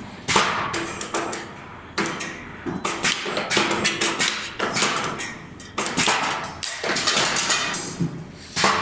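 2D CNC wire bending machine running: an irregular series of sharp clacks and knocks as the wire is fed and bent, with short mechanical whines between some of them.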